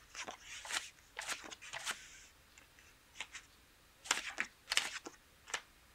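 Playing cards being dealt from a dealing shoe and flipped face up onto a felt blackjack table: a string of short card snaps and clicks, several in the first two seconds and another cluster about four to five seconds in.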